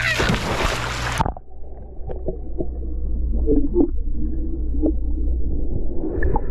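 Splash of a person jumping feet-first into a swimming pool, cutting off sharply about a second in; then muffled underwater sound of bubbling and gurgling over a low rumble as she sinks wearing a self-inflating life jacket.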